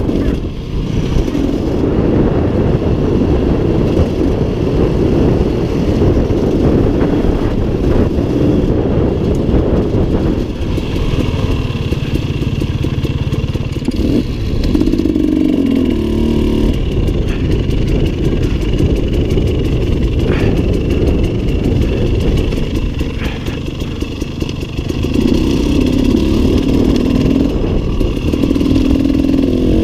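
A 2017 KTM 300 EXC two-stroke enduro motorcycle heard from the rider's helmet camera, its engine running under changing throttle as it is ridden off-road. The revs rise and fall, with a louder burst of revving about 25 seconds in, wind rushing over the microphone, and a few knocks from the rough ground.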